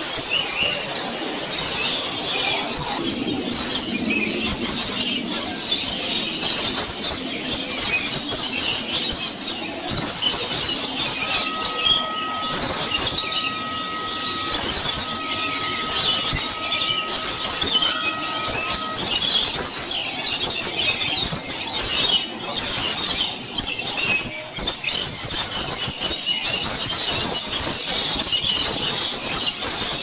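Many birds calling at once: a dense, high-pitched chorus of chirps and screeches. A thin steady tone, broken in places, runs for about eight seconds in the middle.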